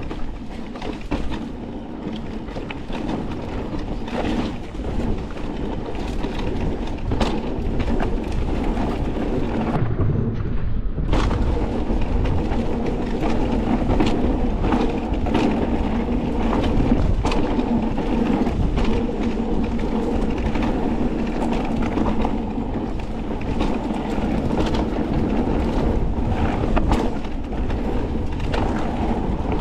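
Forme electric mountain bike ridden over a rough trail: wind rushes on the microphone, with a steady run of knocks and rattles from the bike and its tyres on the ground.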